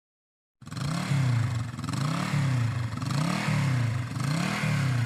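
Motorcycle engine revved up and down over and over, about once a second, starting abruptly about half a second in.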